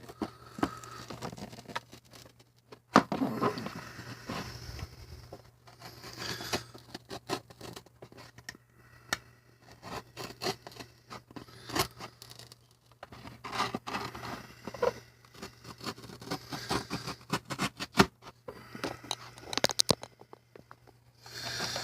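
Hobby knife scraping and cutting at a plastic blister on a cardboard toy card, with crackling plastic and irregular clicks, scratches and short tearing sounds.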